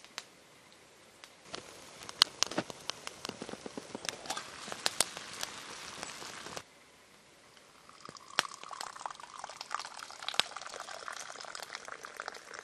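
Water boiling hard in a steel mess tin on a twig-fired hobo stove, with the fire crackling sharply; the sound cuts off suddenly about six and a half seconds in. After a short quiet, a steady pouring sound with scattered clicks: the hot spruce-needle tea being poured out.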